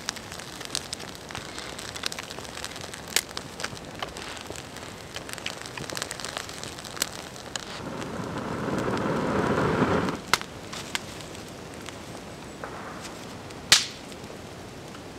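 Small wood campfire crackling and popping, with one loud, sharp snap near the end. About halfway through, a person blows on the young flames for a couple of seconds: a swelling rush of breath that stops suddenly.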